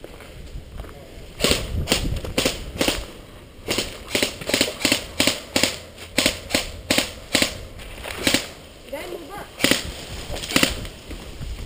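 Airsoft rifles firing a long string of sharp, snappy single shots, about two to three a second, starting a second and a half in and running for about nine seconds.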